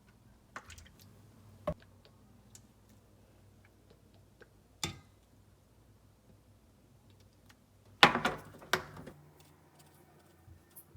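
Scattered light clicks and knocks of things being handled, with a short burst of louder clatter about eight seconds in.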